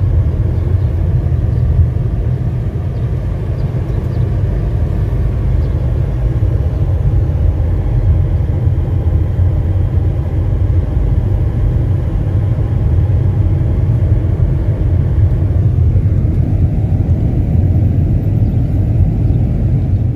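A car driving along a road, a steady low rumble of engine and tyre noise.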